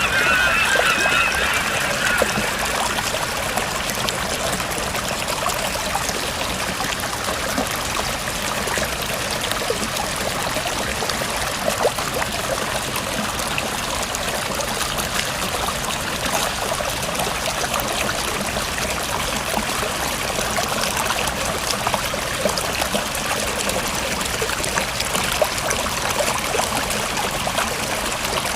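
River water flowing steadily, a continuous bubbling rush of running water with fine trickling detail. A brief wavering call sounds over it in the first couple of seconds.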